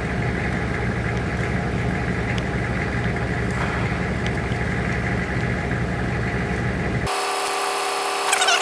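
Tow truck's engine idling steadily. About seven seconds in, a high whir of several steady tones starts while the low engine hum drops away.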